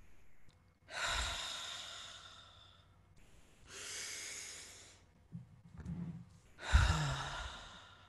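Deep, audible breaths into a close microphone as part of a guided breathing exercise. A long breath starts about a second in and fades away, a shorter one comes around four seconds, and a sharp sighing exhale near seven seconds is the loudest.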